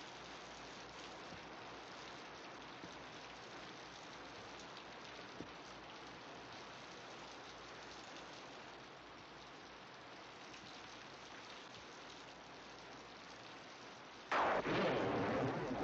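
Steady rain hissing, with a couple of faint small knocks. About fourteen seconds in, a sudden loud noise cuts in and keeps going.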